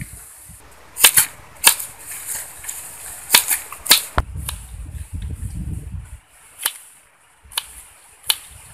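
A machete blade chopping wax apples on a banana leaf laid over a stone: about ten sharp, irregular knocks as the blade cuts through the fruit onto the rock, several bunched in the first four seconds and a few spaced out near the end.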